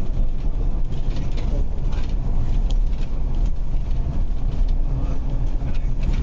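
Double-decker bus running at road speed, heard from inside on the upper deck: a steady low engine and road rumble with light interior rattles and clicks.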